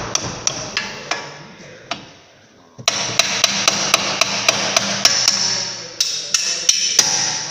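Hammer striking metal with a bright ring while fitting the new front upper control arms on a 2007 Audi A6: a few separate blows, then a quick run of about five blows a second for some three seconds, and a few more near the end.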